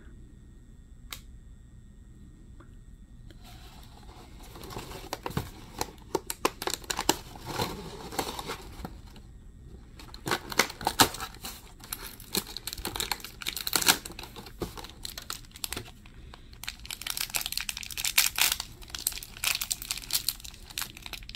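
Cardboard packaging being pulled and torn open, then a crinkly pink wrapper rustling as a small toy figure is unwrapped by hand, in irregular crackling bursts that start about three seconds in.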